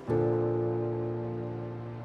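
Background music: a low sustained chord struck just at the start, ringing and slowly fading.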